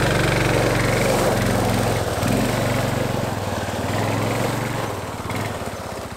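A Bashan 250 quad's engine pulls away from idle under throttle, with the tyres crunching on gravel. It fades as the quad rides off.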